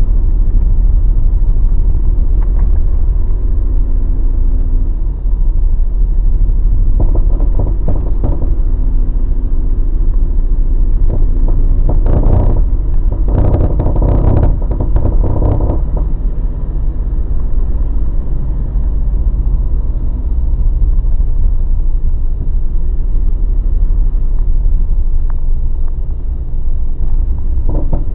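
Mazda BT50 pickup truck driving, with a steady low rumble and two spells of rapid clunking and cracking: a short one about a quarter of the way in and a longer one of several seconds near the middle. This is the clunking, grinding, cracking noise the truck developed after two drive-shaft cross joints and the center bearing were replaced.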